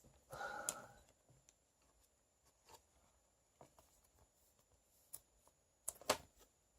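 Mostly quiet handling of Pokémon trading cards: a short soft rustle near the start, a few faint taps, and a couple of sharper clicks near the end.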